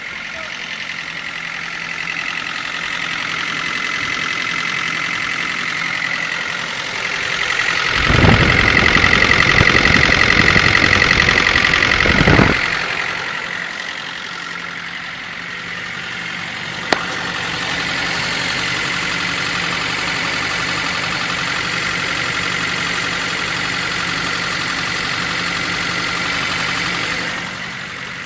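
Nissan S13's engine running at idle, with a steady high note over the engine sound. It runs much louder for about four and a half seconds in the middle, then settles back. A single sharp click comes near the end of the first two-thirds. This is the engine noise the owner is showing.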